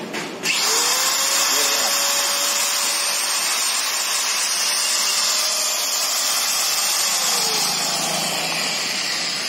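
Hypermax 850-watt angle grinder, running with no disc fitted: it spins up about half a second in, runs at full speed with a steady high whine, then slowly winds down over the last two seconds after being unplugged at the wall socket.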